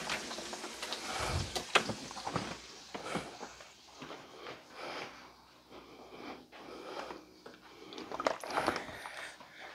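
Chicken cutlets frying in oil in a skillet, a quiet uneven sizzle with scattered crackles and spits.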